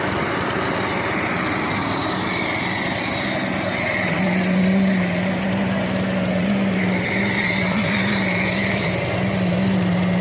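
Machinery engine running steadily, with a low steady hum coming in about four seconds in.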